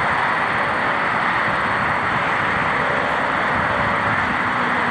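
Fighter jet's engine at takeoff power as the jet rolls and lifts off, a loud, steady rushing jet noise.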